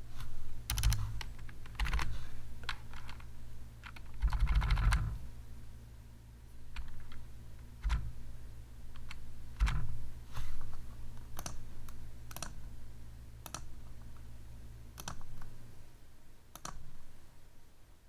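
Typing on a computer keyboard in irregular bursts, with a quick flurry of keystrokes about four seconds in and single strokes between. A low steady hum runs underneath and fades out near the end.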